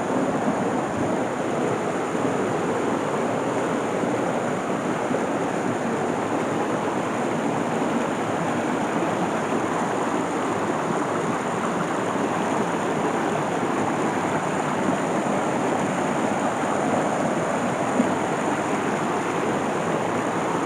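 A small woodland stream rushing over rocks in a steady, unbroken wash.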